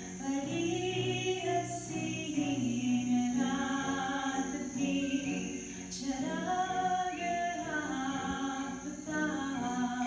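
A woman's voice singing a slow, waltz-like song, with long held notes that bend and slide in pitch.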